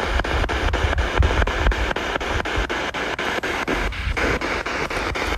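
Spirit box scanning through radio stations: a steady hiss of static broken by evenly spaced clicks, about seven a second.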